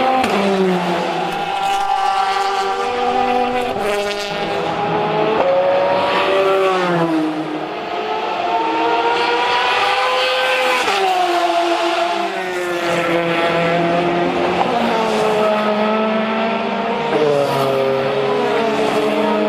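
GTE-class race car engines at full throttle. Their pitch climbs and then drops sharply at each gear change, over and over, as the cars drive by.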